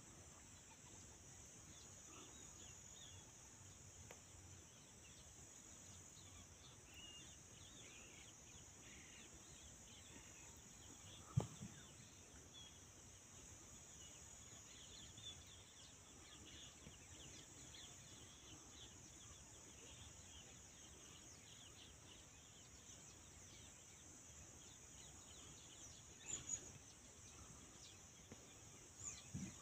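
Quiet grassland ambience: a steady high drone of insects with faint scattered bird chirps. A single sharp knock comes about a third of the way in, and a few softer knocks near the end.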